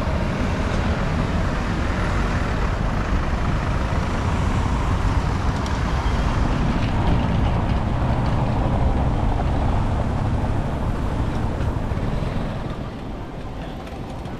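Steady city traffic and road noise heard from a moving bicycle, with a strong low rumble under it from the ride; it grows quieter near the end.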